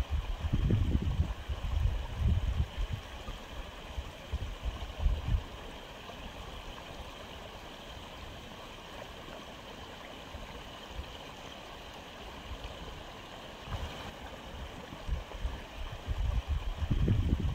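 Aquarium water moving steadily with a gurgling hiss, as from a running filter. Irregular low rumbling sounds over it in the first five seconds and again near the end.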